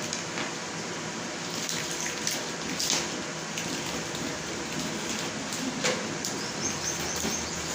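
Plastic connectors and wires of an e-rickshaw wiring harness being handled, giving a few short clicks and rustles over a steady hiss.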